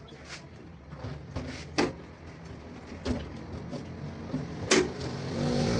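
A few sharp clicks and knocks of objects being handled, the loudest two about two seconds in and near the end, over a low steady hum.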